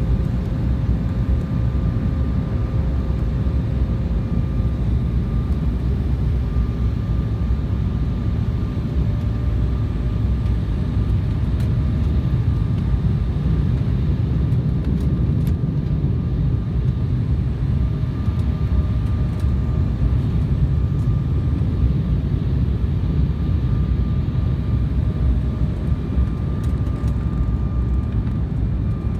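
Steady engine and airflow noise of an airliner heard from inside the passenger cabin, deep and even, with a faint steady whine above it.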